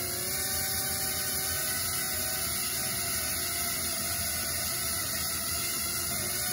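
Small drone's electric motors and propellers whirring with a steady whine over a hiss. The pitch steps up slightly about half a second in as the throttle changes.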